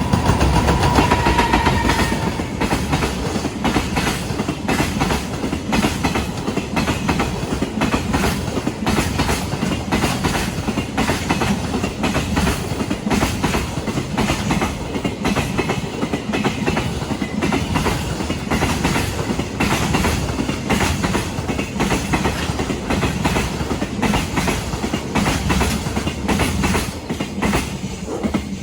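Freight train wagons running over rail joints: a steady, rhythmic clickety-clack of wheel sets striking the joints, with a held high tone in the first two seconds. The clatter cuts off suddenly at the end.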